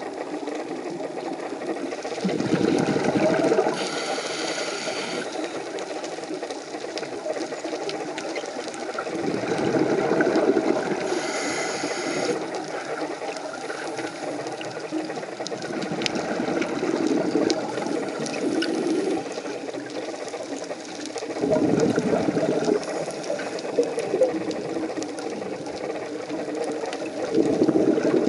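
Scuba diver breathing underwater through a regulator: every six to eight seconds a rush of exhaled bubbles rumbles, and twice it is followed by the high hiss of an inhale through the regulator. Faint scattered clicks sound between the breaths.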